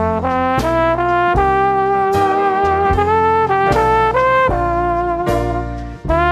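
Music led by brass horns, trumpet- and trombone-like, playing chords that move in steps over a steady beat.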